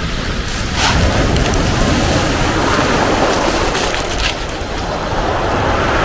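Mediterranean waves breaking over boulders and washing up a pebble beach, a steady surging rush of surf and foam that swells as a wave breaks about a second in.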